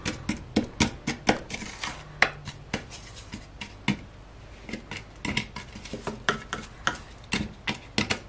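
A wooden spatula stirring a thick oily mixture in a stainless-steel pot, tapping and scraping against the pot in irregular knocks, a few a second, as a stock cube is worked into the oil.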